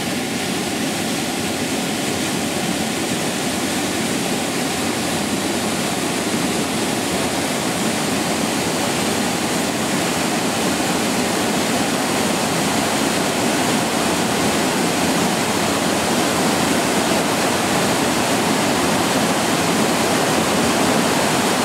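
Steady rush of fast-flowing water, slowly growing a little louder toward the end.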